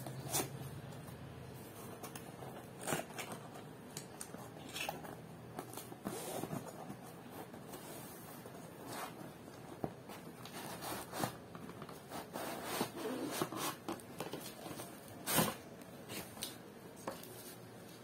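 Cardboard shipping box being opened by hand: irregular rustles, scrapes and taps of cardboard flaps and packaging, with one sharper snap about fifteen seconds in.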